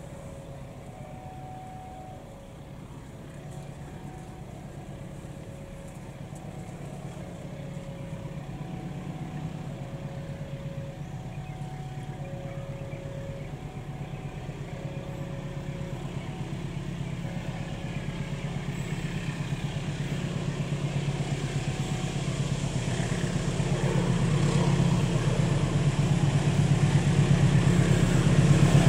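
Diesel locomotive hauling a fuel tank train on approach, its engine drone growing steadily louder as it nears. A level-crossing alarm chimes in two alternating tones and stops about two-thirds of the way through.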